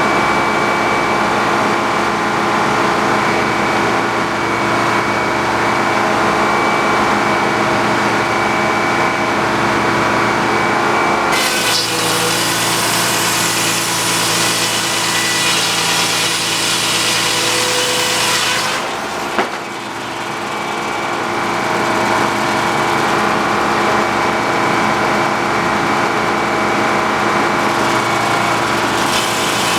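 Sawmill engine running steadily. About a third of the way in, the blade cuts through a log for roughly seven seconds, a loud sawing noise over the engine, and the cut ends with a sharp knock before the engine runs on alone.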